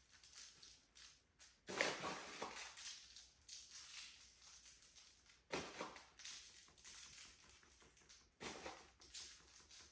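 Faint rustling and pattering that comes and goes, strongest three times: coarse raw cane sugar sprinkled by hand over dough twists on a metal baking sheet.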